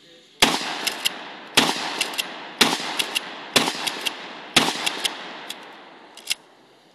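Shotgun fired five times in quick succession, about one shot a second, each shot ringing off and followed by a couple of sharp clicks of the action being worked. A few more clicks near the end after the last shot.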